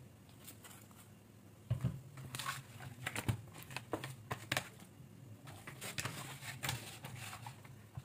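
Hands rubbing and patting a fish-sauce and spice marinade into the skin of a raw whole chicken: an irregular run of slaps and squelches, starting about two seconds in.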